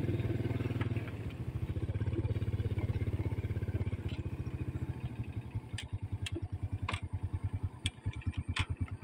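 Underbone motorcycle engine running at low speed, ridden slowly over a grass and dirt track; its beat slows and thins in the second half. A few sharp clicks come through near the end.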